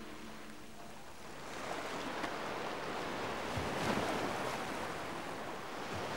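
Sea surf washing in, a hiss that swells about a second and a half in and then rises and falls in slow surges.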